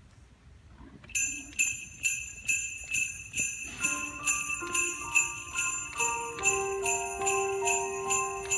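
Jingle bells shaken in a steady beat, about two shakes a second, starting about a second in. From about four seconds in, held notes of a tune play along with the bells.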